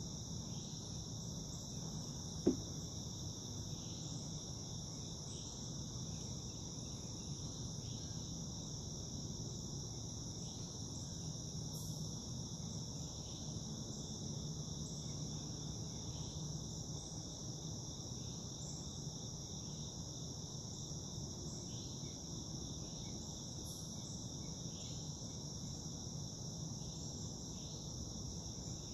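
Steady insect chorus: continuous high-pitched trilling in several layers over a low background rumble. A single short, sharp sound stands out about two and a half seconds in.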